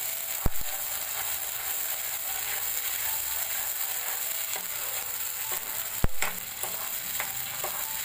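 Ground onion paste sizzling steadily in hot oil while a plastic spatula stirs it around a non-stick pan, with two sharp knocks of the spatula on the pan, about half a second in and about six seconds in, and a few lighter scrapes and ticks.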